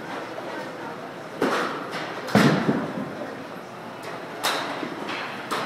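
Four sharp thuds in a batting cage, the loudest about two and a half seconds in, from the pitching machine and balls striking the netting and floor.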